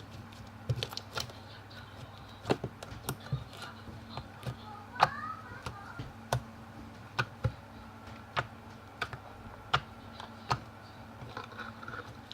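Slime being squeezed and stretched by hand, giving sharp irregular clicks and pops, one or two a second, as trapped air bursts, with a brief squeak about halfway through.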